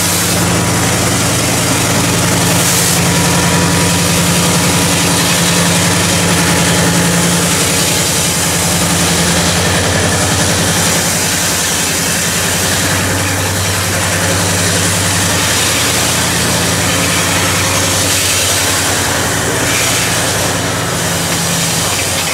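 Diesel engines of a pair of CC 205 diesel-electric locomotives running steadily at a low, idling speed, a deep, even engine sound.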